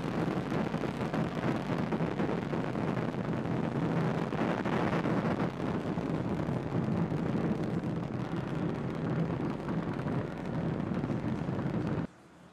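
The nine Merlin engines of a Falcon 9 first stage firing during ascent: a steady rushing noise that cuts off suddenly near the end at main engine cutoff.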